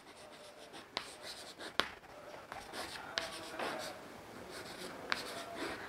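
Chalk writing on a chalkboard: faint scratching strokes, with a few sharp taps as the chalk strikes the board.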